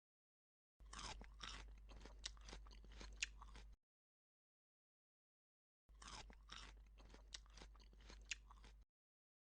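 Crunchy chewing: a person eating, with crisp crunches in two bouts of about three seconds each, separated by total silence.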